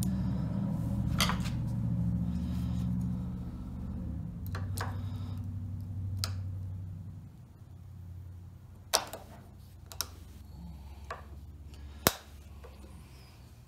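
Small metallic clicks and taps as a steel snap ring is worked into its groove over a U-joint bearing cap in a driveshaft yoke, with one sharp click near the end. A low steady hum underneath fades away about halfway through.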